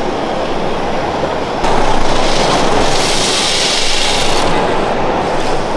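A steady background din, then, after an abrupt change about one and a half seconds in, a rushing clatter of small plastic Lego pieces sliding out of the raised bed of a Lego tipper truck. The pour lasts about two seconds and then stops.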